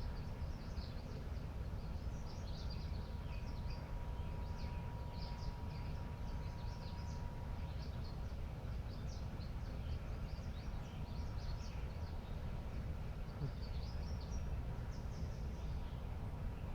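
Small songbirds chirping and calling all around, many short high chirps, over a steady low outdoor rumble. A faint steady tone runs through about the first half.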